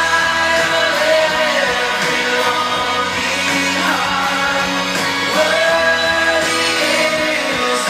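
A pop-rock song with a singer holding long, gliding notes over a steady band backing.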